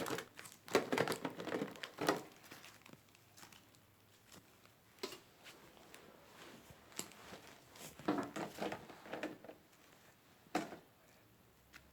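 Pokémon trading cards and foil booster packs being handled: intermittent rustling and crinkling with light taps and clicks.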